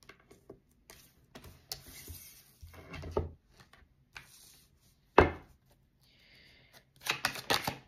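Tarot cards being handled at a wooden table: scattered soft clicks and slides of cards, a single sharp knock about five seconds in, and a quick run of card-shuffling clicks near the end.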